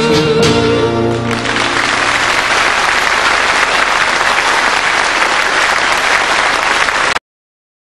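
Music with a held note ends about a second in and gives way to applause from an audience, which cuts off abruptly near the end.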